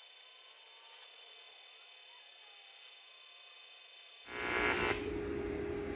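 AC TIG welding arc on aluminium giving a harsh electric buzz. It is faint for the first four seconds, comes in loud about four seconds in for half a second, then settles to a lower, steady buzz.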